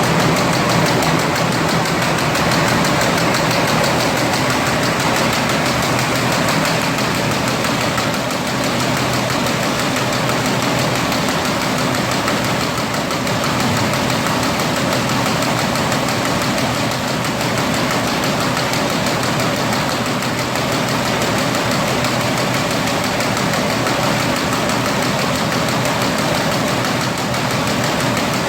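Perforated paper bag making machine running steadily, a dense, rapid, even mechanical rattle with no let-up.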